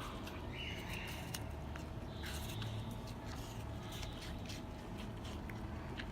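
Red panda chewing apple: irregular wet crunching and clicking bites over a steady low background hum.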